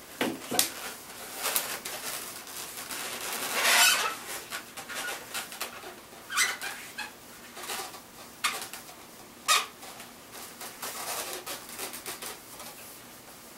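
Latex twisting balloons squeaking and rubbing against each other as a balloon elephant is handled, with short squeaks of a marker pen drawing on the latex. The squeaks come irregularly, loudest about four seconds in.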